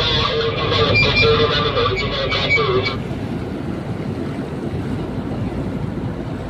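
Tugboat underway: a steady rush of engine noise and churning propeller wash, with wind on the microphone. For the first three seconds a wavering tone with thinner higher tones sits over the rumble, then cuts off abruptly.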